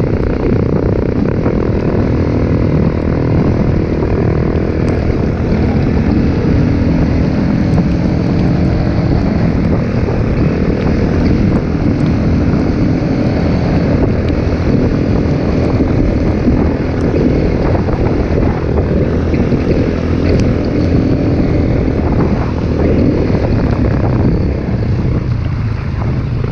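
Trail motorcycle engine running under way, its note rising and falling a little with the throttle, mixed with wind rushing over the microphone.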